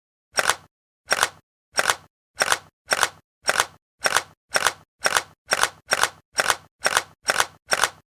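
Camera shutter sound effect, a sharp two-part click repeated about fifteen times, coming a little faster toward the end, with dead silence between clicks.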